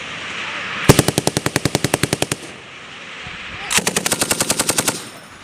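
A belt-fed machine gun firing two bursts of automatic fire, about eleven shots a second: a longer burst about a second in and a shorter one near the end, with echo after each.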